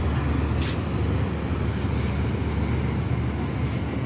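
Passenger train's steady low rumble as it pulls away along the platform, with a couple of faint clicks.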